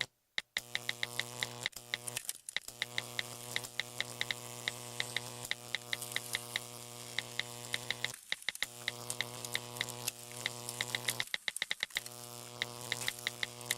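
A steady low buzz, like a flying insect, that stops and starts again a few times, with rapid irregular clicking over it.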